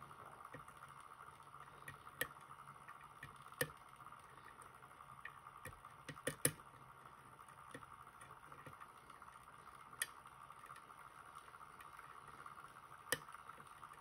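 Lock pick working inside a JPM Surf euro cylinder lock: faint scattered ticks and a handful of sharper clicks as the pick lifts the serrated side pins past the serrations on the sidebar.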